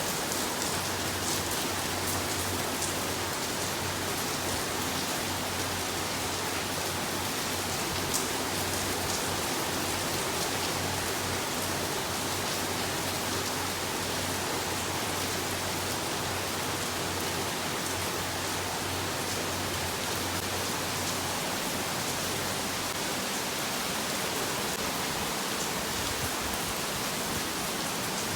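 Steady rain falling, an even hiss with a few sharp drop ticks. A faint low hum runs underneath and stops a little over three quarters of the way through.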